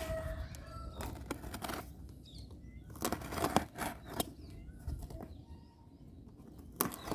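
Cardboard box being opened by hand: irregular rustling of the flaps and packing with several sharp knocks and clicks, loudest about three seconds in and again near the end.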